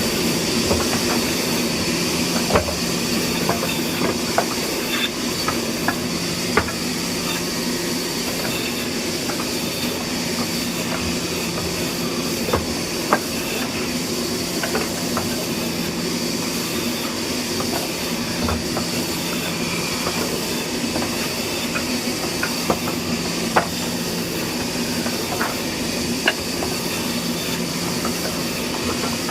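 A woodworking machine running steadily: a constant hum and hiss with sharp clicks and knocks scattered through it.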